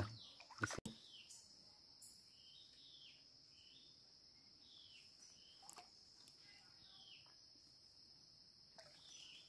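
Faint forest stream-side ambience: a steady high insect drone of crickets or cicadas, with a bird repeating a short falling call every second or so. There is one sharp click just under a second in.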